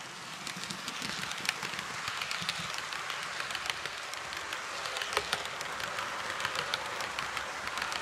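Model HST train (power car and coaches) running past on model railway track: a steady rushing hiss of motor and wheels, dotted with many quick irregular clicks. It grows louder about half a second in.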